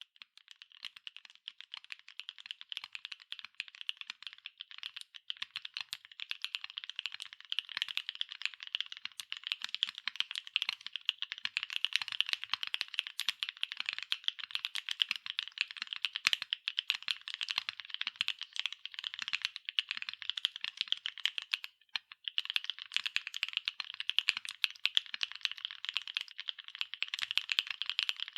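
Continuous fast typing on a NEO70 mechanical keyboard with MMD Cream V4 linear switches, PBT double-shot keycaps and an aluminium plate: a dense, even stream of keystrokes with a brief pause about 22 seconds in.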